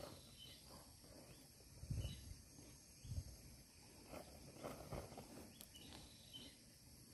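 Faint sloshing of shallow stream water as a hand works among the stones on the bed, with two low thumps about two and three seconds in.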